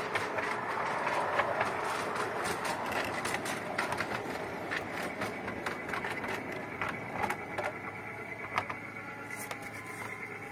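Miniature railway train rolling on 5-inch gauge track: the steel wheels click and rattle over the rail joints at an uneven rhythm over a steady rolling noise. A faint steady whine joins in during the second half.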